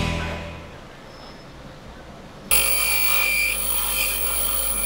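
Music fades out, and about two and a half seconds in a Record Power bench grinder starts up abruptly, grinding a steel chisel edge on its white wheel. It is a steady low hum under several steady high-pitched tones and a hiss.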